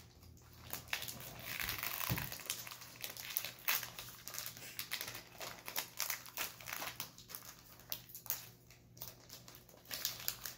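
Foil Pokémon booster-pack wrapper crinkling as it is torn and worked open by hand, a long run of irregular short crackles.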